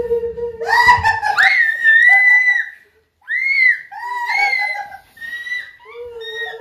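High-pitched human screaming in two bouts with a short break in the middle, framed by a long, steady wailing howl at the start and again near the end: people shrieking in fright.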